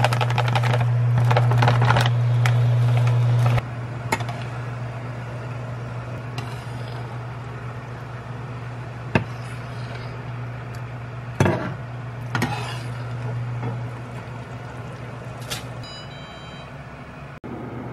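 A steady low machine hum, loud at first and dropping sharply about three and a half seconds in, then fading out near the end, with scattered clicks and knocks of handling; near the end comes a short run of high electronic beeps.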